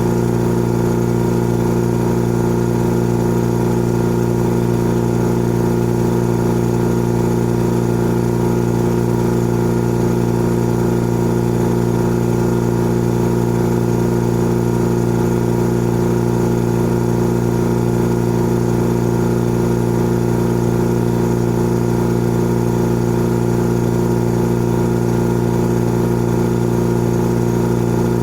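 Old air compressor running steadily: an even, unchanging hum.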